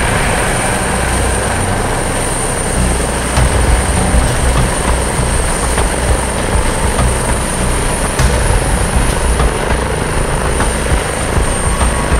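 Eurocopter EC145 helicopter running on the ground with its main rotor turning: a steady high turbine whine over dense, heavy rotor and engine noise.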